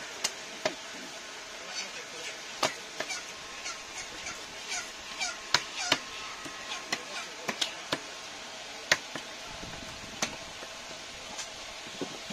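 Large knife cutting and chopping a big pangas catfish on a wooden log chopping block: irregular sharp knocks of the blade striking through into the wood, over a steady background hum with a few brief high calls.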